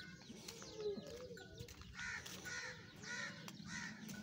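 Birds calling: a lower, wavering call in the first second and a half, then four loud calls about half a second apart from about two seconds in, over light chirping.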